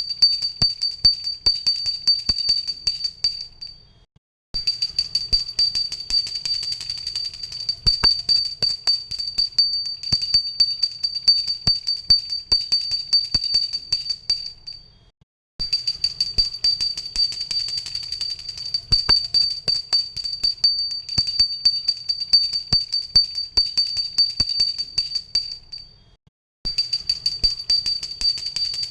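Handheld brass pooja bell rung continuously, its clapper striking many times a second over a steady high ringing. The ringing breaks off into a short silence three times, about every eleven seconds.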